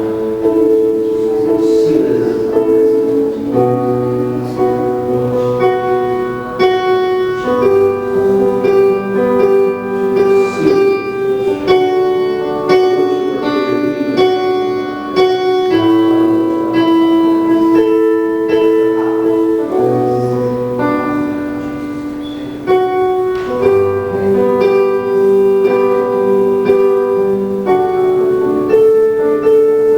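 Piano or keyboard playing slow, sustained chords that change every second or two.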